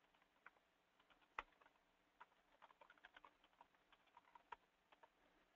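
Faint computer keyboard typing: irregularly spaced single keystrokes, with one louder key press about a second and a half in.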